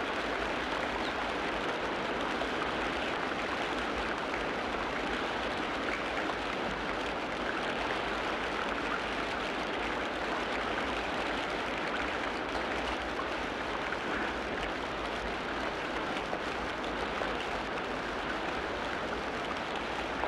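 Steady, even rushing of water with no rise and fall.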